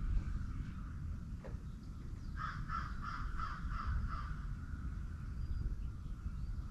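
A crow cawing in a quick run of about eight calls for roughly two seconds, over a steady low background rumble.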